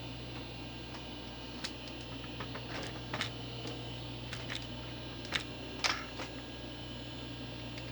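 Alps white key switches of an old IBM 106-key keyboard clicking as keys are pressed one at a time in a slow, uneven scatter, over a steady low hum.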